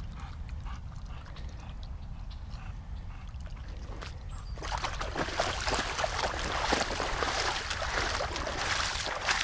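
Feet and paws wading through shallow marsh water, splashing and sloshing, beginning about halfway through over a low steady rumble.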